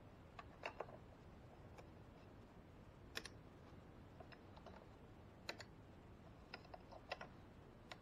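Faint, irregular light clicks and taps, about a dozen over several seconds, a few louder than the rest, over quiet background hiss.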